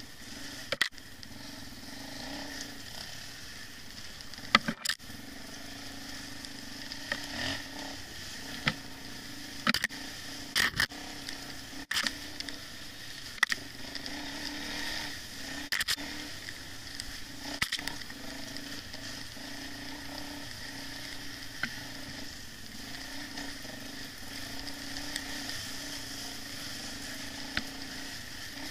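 Dirt bike ridden along a rough forest trail, heard through a helmet-mounted camera: a steady engine hum under wind hiss, broken by a dozen or so sharp, irregular knocks and rattles as the camera jolts over bumps.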